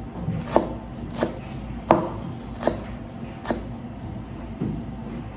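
Kitchen knife slicing myoga ginger buds on a wooden cutting board: about six sharp knocks of the blade striking the board, each less than a second apart, with a longer gap before the last, weaker one.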